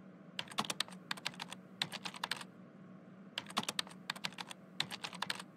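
Typing on a computer keyboard: quick runs of key clicks, broken by short pauses.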